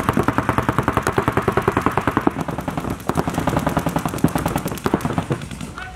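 Paintball markers firing rapid strings of shots, about a dozen a second, thinning out near the end.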